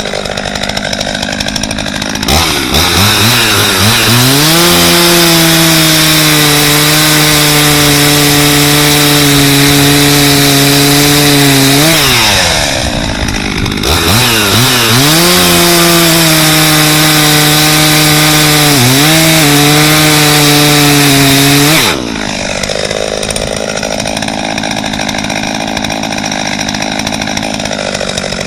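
Husqvarna 50 two-stroke chainsaw engine idling, then revved up and held at high speed for about ten seconds, dropping briefly and revved high again for another eight seconds or so, before falling back to idle near the end.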